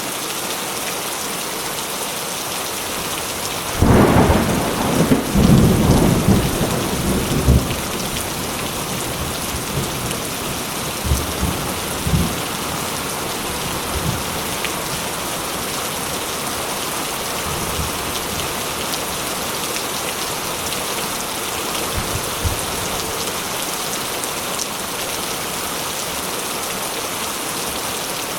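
Steady rain falling. A few seconds in, a loud thunderclap rumbles for about four seconds, and a few fainter rumbles follow shortly after.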